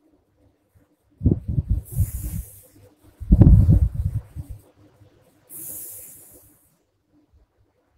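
A sleeping woman snoring through an open mouth, her lips flapping on the breath: two low, fluttering breaths, the first about a second in and the louder one just after three seconds, then a soft airy breath near six seconds.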